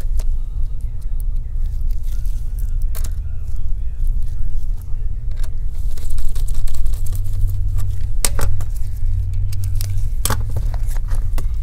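Laptop parts being handled and fitted back together: scattered sharp clicks and taps of plastic and metal, the clearest a few seconds apart, over a steady low hum.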